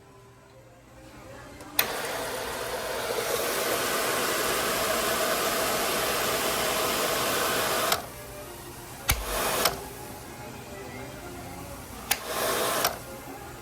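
World Dryer SLIMdri hand dryer blowing. It switches on with a click about two seconds in, runs for about six seconds and cuts off abruptly, then restarts twice in short bursts of well under a second each.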